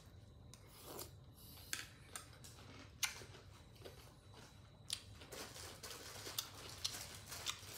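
Close-up chewing of a mouthful of shredded green mango salad, with a few sharp crunches and smaller crisp crackles in between.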